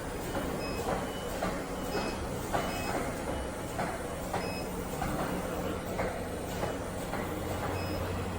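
CNC oscillating-knife cutting machine lowering its tool head: a steady motor hum with short clicks about every half second, as the head steps down toward the felt to set the knife depth.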